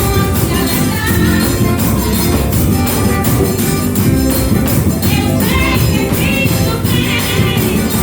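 Gospel band music with a steady, fast beat; a voice sings over it in the second half.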